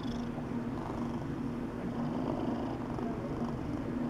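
Tabby cat purring steadily, close to the microphone.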